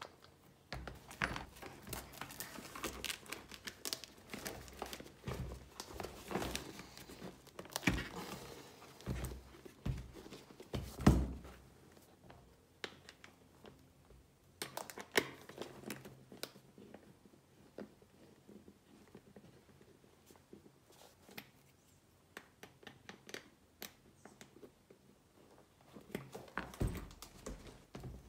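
Close handling noise of bench work on the boots: rustling and crinkling with many light taps and knocks, busiest in the first dozen seconds, with one louder knock about eleven seconds in, then thinning to scattered clicks.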